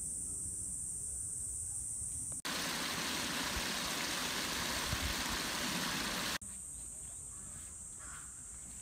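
Water rushing through a small stone spillway, a loud, even splashing that starts and stops abruptly with the cuts, about two and a half seconds in and about four seconds later. Before and after it, insects drone steadily at a high pitch.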